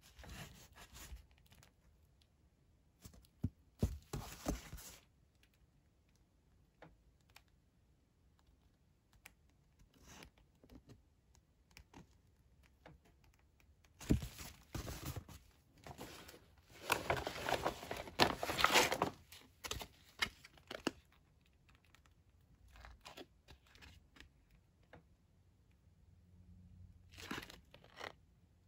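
Intermittent rustling and crinkling of MRE packaging being handled: a cardboard nutrition card and a plastic-foil crackers pouch. There is a longer, louder stretch of crinkling about halfway through.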